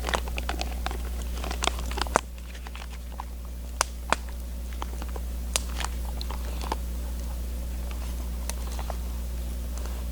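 Irregular sharp clicks and taps of a spoon against a camp cooking pot as the stew is stirred and tasted, busier in the first two seconds, over a steady low hum.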